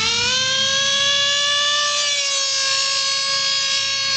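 Traxxas Nitro Rustler RC truck's TRX 2.5 two-stroke nitro engine at full throttle, a loud, high-pitched wail that climbs in pitch over the first half second and then holds steady at top speed.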